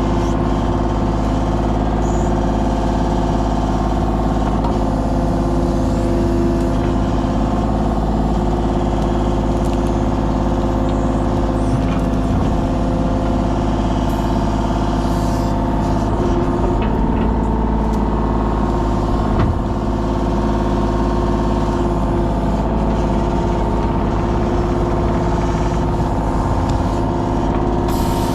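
An engine running steadily at a constant speed, with a few faint knocks.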